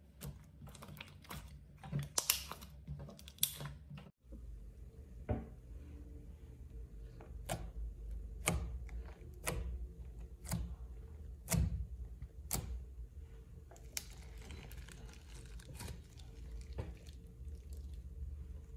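Slime being pressed and poked by hand, making sticky clicks and pops. After about seven seconds there is a run of sharp pops roughly once a second, then softer crackling.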